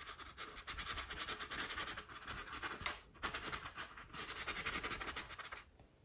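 A small paintbrush scrubbing acrylic paint onto canvas: a dry, scratchy bristle-on-canvas rustle made of many quick short strokes. It pauses briefly about three seconds in and stops shortly before the end.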